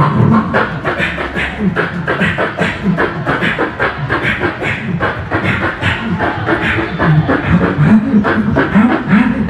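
Live beatboxing through a cupped handheld microphone and stage PA: a fast, dense beat of mouth-made kick, snare and hi-hat sounds, with low sliding bass tones woven in, more prominent in the last few seconds.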